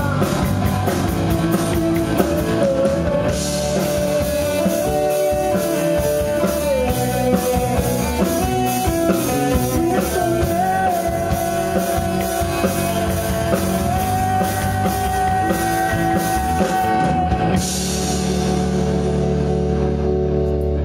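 Live rock band with electric guitar, bass and a Yamaha drum kit playing the close of a song, a held melody line over a steady drum beat. About 17 seconds in the beat stops and a final chord rings out under a crash of cymbals.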